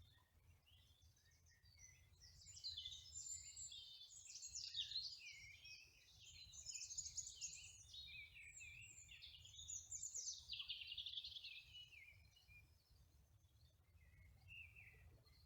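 Songbird singing from the hedgerow: a long run of rapid, varied warbling and trilling phrases, loudest in the middle and fading to a few faint notes near the end, over a faint low rumble of outdoor background.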